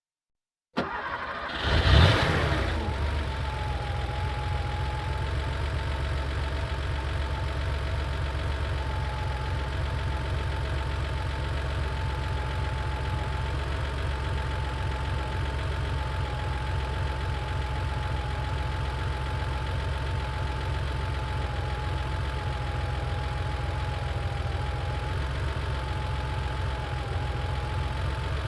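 A 1990 Porsche 911's air-cooled flat-six, heard from behind the car, cranks just under a second in, catches with a brief rev flare, then settles into a steady idle.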